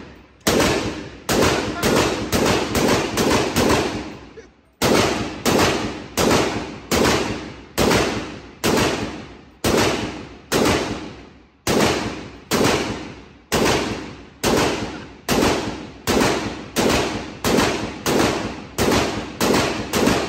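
Zastava ZPAP92 AK pistol in 7.62×39 fired semi-automatically in quick succession, about two shots a second with a brief pause about four seconds in, each shot echoing in an indoor range lane: a magazine dump.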